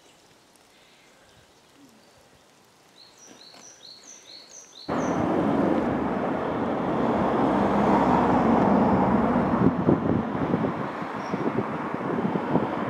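A diesel freight locomotive hauling a train of tank wagons approaches, its engine running with a heavy, steady rumble that starts suddenly about five seconds in, with wind buffeting the microphone. Before it, a small bird chirps five or six times.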